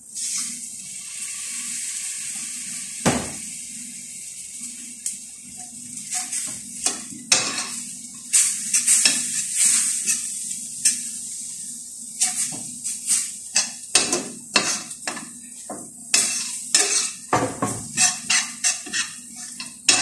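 Water poured into a hot stainless steel frying pan sets the sauce sizzling at once, loudest over the first few seconds. A metal spoon then stirs and scrapes the pan, with a knock a few seconds in and more and more sharp clinks against the steel toward the end.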